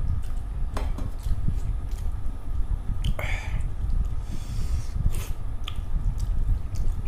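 Close-miked chewing and wet mouth sounds of someone eating rice and fish curry, with irregular soft thumps, small sharp clicks, and a short breathy noise about three seconds in.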